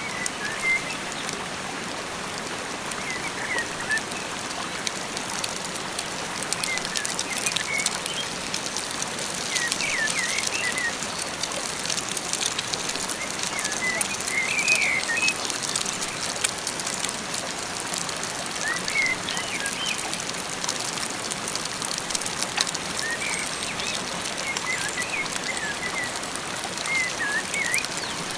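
A steady hiss of water, rain or flowing water, with many fine ticks through it. Small birds chirp in short clusters every few seconds.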